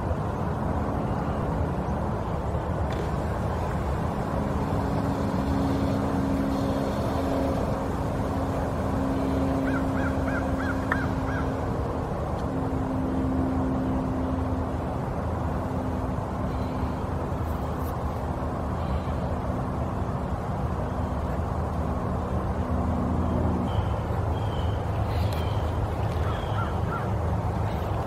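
A steady low hum, with birds calling over it: a quick run of about six short notes about ten seconds in, and a few short calls near the end.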